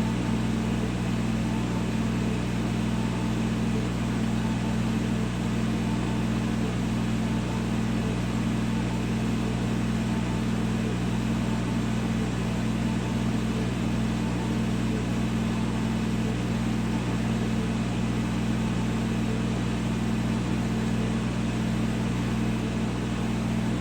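Laser CNC engraver running an etching job on glass: a steady, unchanging mechanical hum from the machine's fans and motors.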